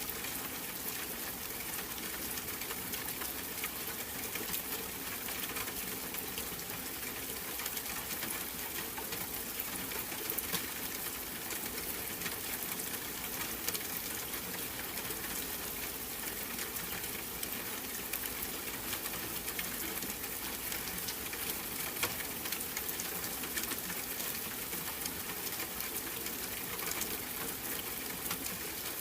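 Steady rain, an even hiss with scattered fine drop ticks.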